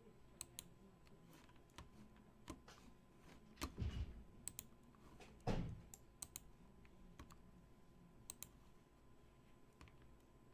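Faint, scattered clicks and taps of a computer keyboard and mouse, with two louder thumps about four and five and a half seconds in.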